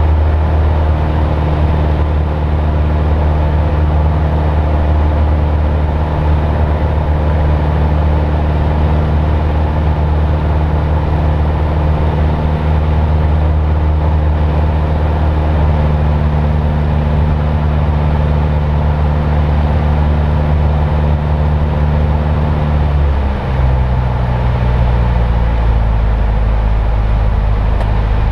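Cabin sound of a single-engine piston airplane in flight: the engine and propeller drone steadily, then about three-quarters of the way through drop quickly to a lower pitch and hold there as engine power is reduced.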